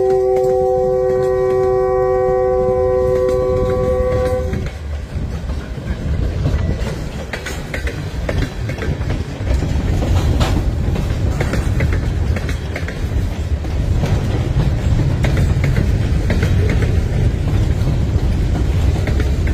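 Horn on a caboose leading a reversing freight train, sounding one long steady chord as a crossing warning and cutting off about four and a half seconds in. Then the freight cars roll past, their wheels clicking over the rail joints over a steady rumble.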